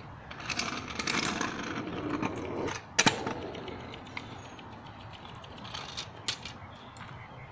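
Kick scooter wheels rolling on asphalt, then one sharp clack about three seconds in as the scooter lands a bunny hop, with a couple of lighter clicks about six seconds in.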